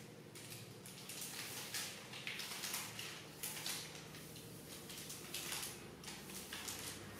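Soft grass broom swishing across a smooth floor in a run of short strokes, a few a second, over a steady low hum.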